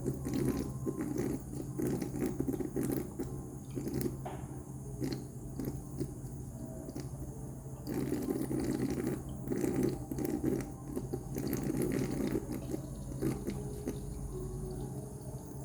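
Water dripping and splashing in an anti-gravity water-drop humidifier, with many small drip clicks and a steady low hum beneath.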